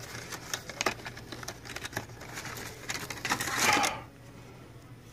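Handling and opening a small cardboard product box: a run of light clicks and taps, with a louder rustle of packaging about three and a half seconds in, after which it goes quiet.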